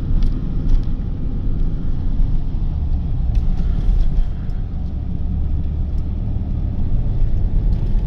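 Car driving along, a steady low rumble of road and engine noise with a few faint light ticks.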